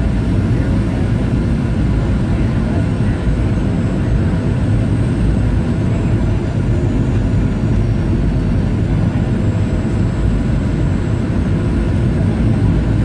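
Steady roar of a Boeing 737 airliner's engines and airflow heard inside the passenger cabin in flight, a dense low rumble without change.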